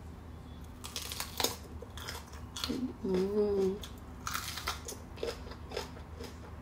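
Crisp crunching as teeth bite into a raw red bell pepper, then chewing, with a short hummed "mmm" about three seconds in.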